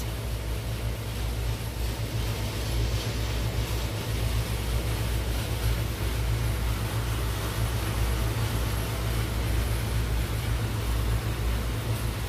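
Steady low drone of large greenhouse ventilation fans, a constant rumble with an airy hiss over it.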